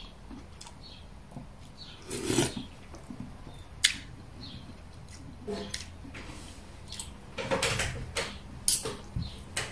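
Metal spoon and fork clinking and scraping against a plate and a bowl while eating: scattered light clinks, a sharp one about four seconds in, and a quicker run of clinks and scrapes near the end.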